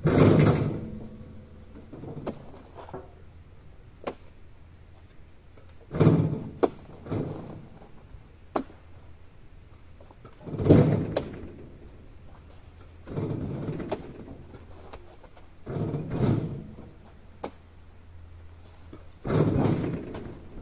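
Oil palm fresh fruit bunches being thrown down one after another: heavy thuds every two to five seconds, some in quick pairs, over a steady low hum.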